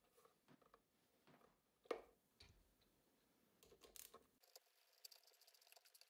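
Near silence with faint clicks and taps of a synthetic shotgun stock being handled and fitted back onto the gun, with one louder knock about two seconds in.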